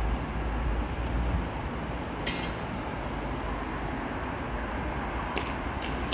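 Steady outdoor city ambience, a low rumble and hiss, with two sharp clicks, one about two seconds in and one about five seconds in.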